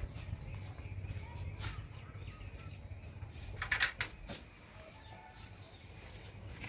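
Faint bird calls, including pigeons or doves cooing, over a steady low rumble, with a few sharp clicks; the loudest is a short cluster of clicks a little past halfway.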